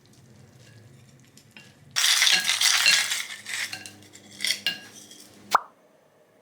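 Dishes and cutlery clattering, loudest for about a second and a half, with scattered clinks afterwards, ending in one sharp click.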